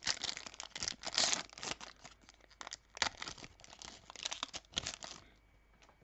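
Wrapper of a Topps Finest baseball card pack being torn open and crinkled by hand, a dense irregular crackling that stops about five seconds in.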